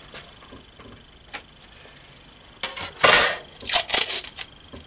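Workbench handling noises: a steel rule laid down with a metallic clatter and masking tape pulled off its roll and torn. They come as a loud rasping burst a little over halfway through, then a few shorter ones.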